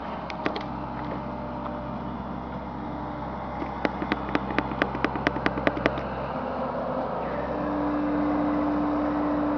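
Bobcat E55 mini excavator's engine running steadily. About four seconds in comes a quick run of about a dozen sharp clicks, and near the end the engine grows louder with a steady whine as it takes on load.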